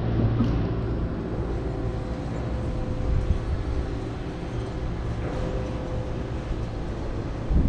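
A machine engine running steadily, a low rumbling drone with a constant humming tone over it.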